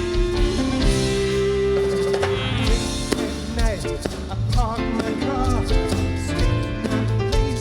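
A rock band playing an instrumental passage with a steady drum beat and bass. From about three seconds in, a lead line comes in that bends up and down in pitch.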